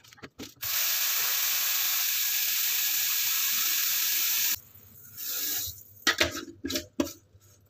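Kitchen tap running water into a glass jar of green olives, lemon slices and coarse salt, topping it up as brine for curing the olives. The water runs steadily for about four seconds and then cuts off suddenly, followed by a few sharp knocks.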